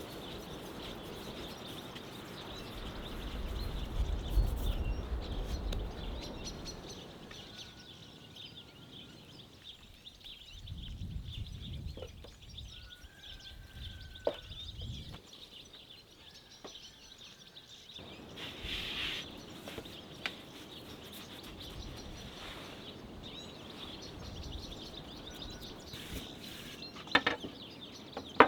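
Birds chirping, with a steady high-pitched hum of birdsong or insects throughout, a few short whistled calls, low rumbles now and then, and scattered sharp knocks, the loudest near the end.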